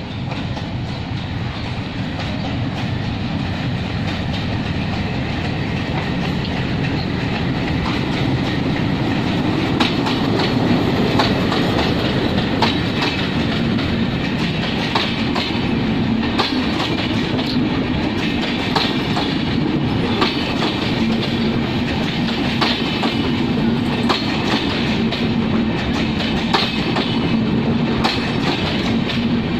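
Passenger train passing close by, led by a diesel locomotive: a steady engine and rail rumble grows louder over the first several seconds as it approaches. Then the coaches roll past with their wheels clicking repeatedly over the rail joints.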